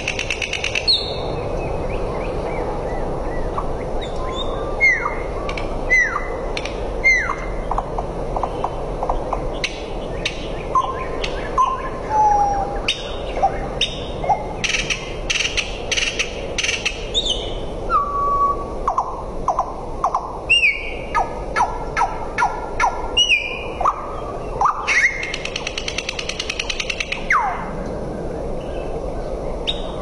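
A small brown songbird singing a varied song: phrase after phrase of downward-sliding whistles, rapid trills and runs of sharp clicking notes, over a steady background hiss.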